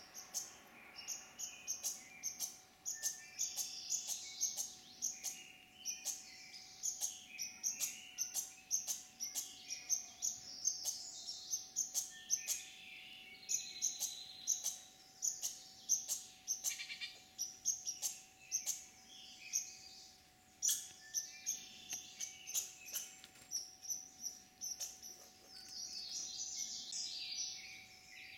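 Birds chirping and singing in the woods, with many short sharp clicks scattered through and a faint steady tone underneath.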